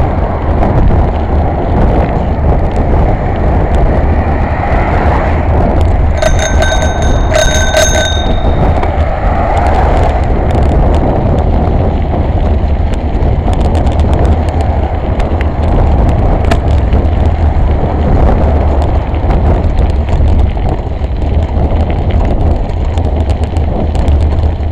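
Steady wind rush on the microphone of a bike-mounted camera while cycling. A bicycle bell is rung twice, about six and seven seconds in, each ding ringing on briefly.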